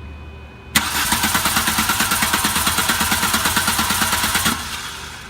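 A 1997 VW Jetta's 2.0 litre ABA four-cylinder is cranked on the starter for about four seconds, with an even rhythmic chug, and it does not fire. It is a crank-no-start: the ignition coil is getting no spark signal from the ECU.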